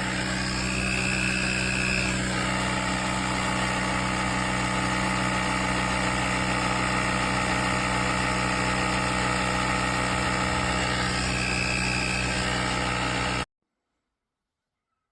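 A motor running steadily with an even, unchanging hum, ending abruptly near the end.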